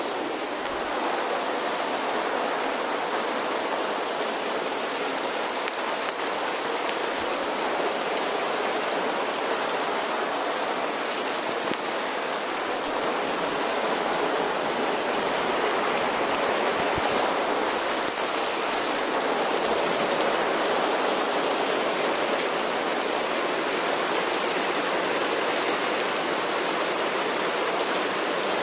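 Steady rain falling onto paving slabs covered in standing water.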